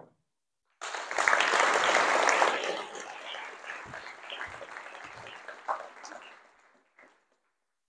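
Audience applauding. It breaks out about a second in, is strongest for the next couple of seconds, then tapers off and dies away about seven seconds in.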